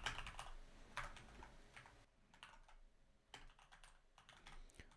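Faint typing on a computer keyboard: irregular key clicks, denser in the first couple of seconds and sparser after.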